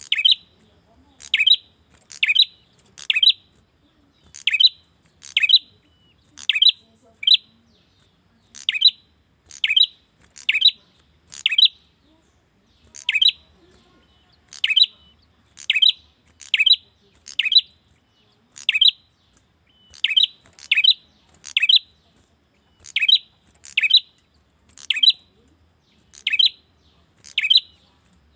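Male prenjak calling for a female: short, sharp chirps repeated about once a second, often in quick pairs, with a few brief pauses.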